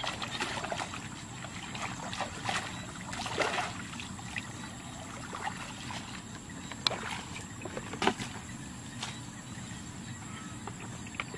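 Water sloshing and splashing in short irregular bursts, with scattered sharp clicks and knocks, over a faint steady high-pitched hiss.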